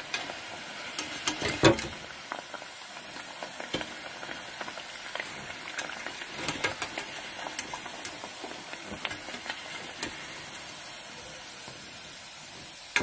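Spinach vadas deep-frying in hot oil in a steel kadai: a steady sizzle, with scattered clicks and knocks from a wire spider skimmer moving through the oil and tapping the pan. The loudest knock comes about a second and a half in.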